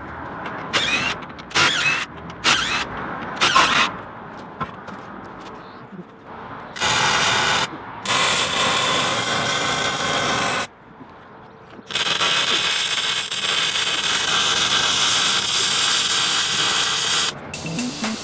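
MIG welder arc crackling: several short tack-weld bursts in the first few seconds, then two longer steady runs of several seconds each with a short pause between.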